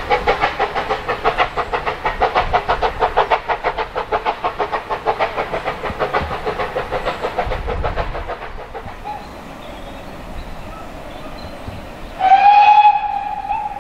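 Steam locomotive working, its exhaust beats coming about five a second and fading out. Later a steam whistle sounds: a loud blast that drops to a softer steady tone.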